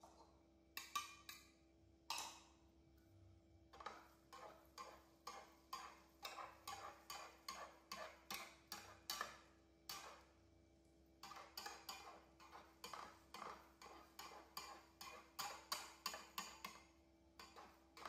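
Metal spatula scraping and tapping against a non-stick frying pan while working a large pancake, in quick repeated strokes about three or four a second. The strokes come in two runs, with a short pause about ten seconds in.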